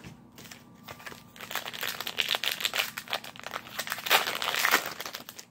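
Crinkling of a baseball card pack's wrapper as it is handled and torn open, building up about a second and a half in and loudest near the end.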